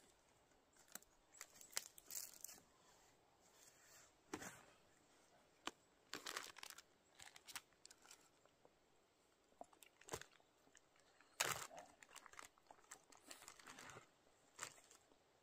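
Plastic food bag crinkling and rustling in short, scattered bursts as it is handled and opened.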